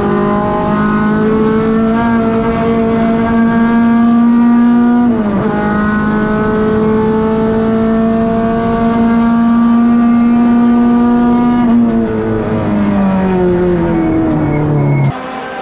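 Renault Clio 2 RS race car's two-litre four-cylinder engine, heard from inside the stripped cabin, pulling hard at high revs and rising slowly in pitch, with a quick gear change about five seconds in. From about twelve seconds the revs drop in several steps as it brakes and shifts down, and near the end the sound switches abruptly to a quieter outside recording.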